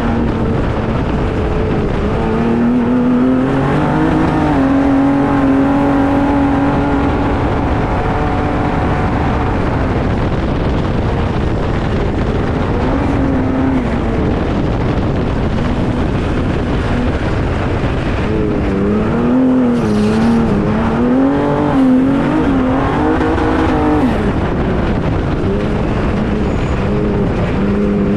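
A Ford EcoBoost engine in an off-road trophy truck running hard under a constant rush of road and wind noise. Its pitch climbs about four seconds in and holds, then later swings quickly up and down several times as the throttle comes on and off.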